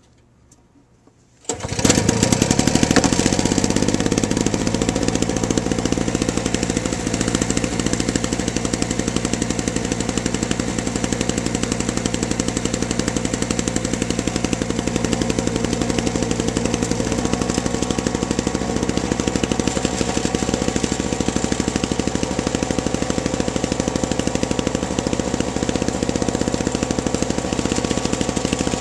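Small single-stage snowblower engine on a cold start: it catches suddenly about a second and a half in and then runs steadily with a fast, even beat. Its tone shifts slightly about halfway through.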